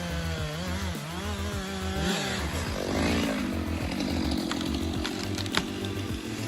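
Stihl MS 462 two-stroke chainsaw running. Its engine note wavers and drops over the first couple of seconds, then from about three seconds in settles into a steady, rougher sound as it cuts into wood.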